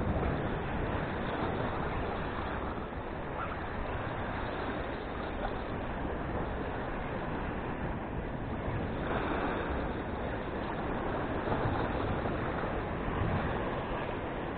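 Sea surf washing against the rocks of the shore, a steady rush of water with no distinct events, with some wind on the microphone.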